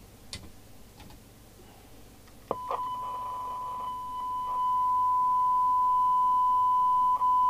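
Steady 1 kHz test tone: the signal generator's modulation received by a Rotel RVC240 FM CB radio during receiver alignment. It starts with a click a couple of seconds in, with a brief hiss around it at first, gets louder a couple of seconds later and dips briefly near the end.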